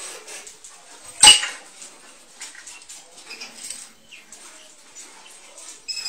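A single sharp knock about a second in, the loudest sound, amid light scattered clicks and a few short faint chirps from a small pet finch.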